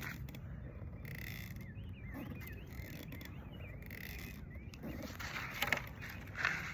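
Faint outdoor ambience: a steady low rumble with a small bird's high, wavering chirps for a few seconds in the middle, and a few brief rustles.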